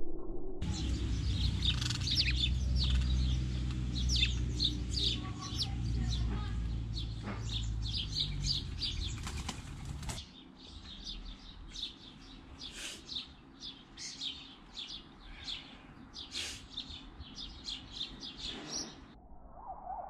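Sparrows chirping in quick, irregular short chirps, mixed with wing flapping. A low rumble lies under the first half and stops about halfway.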